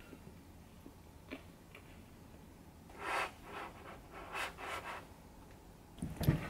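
Quiet handling sounds on a desk: a few light clicks, then a run of soft scraping or rubbing strokes about halfway through, and a dull low thump near the end.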